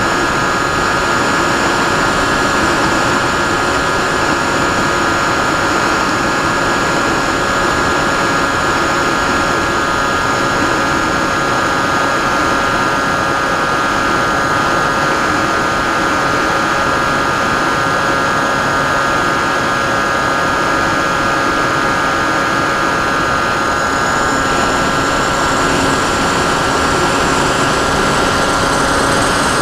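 Sky Cruiser 2400 model plane's motor and propeller running steadily in flight, heard through its onboard camera as a constant whine over rushing air. The pitch rises slightly near the end.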